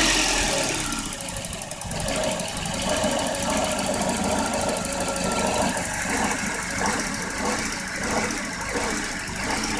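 1994 Volvo 940 engine settling from a brief rev into a rough idle, running unevenly with irregular lumpy pulses: the rough idle the car is known to suffer from.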